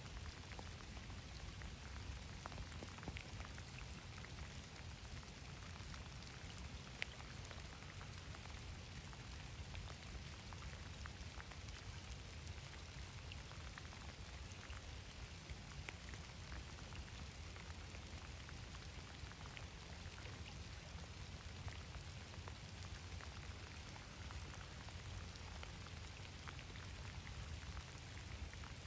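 Steady rain falling on a river's surface: a dense, even patter of small drops with a low rumble underneath.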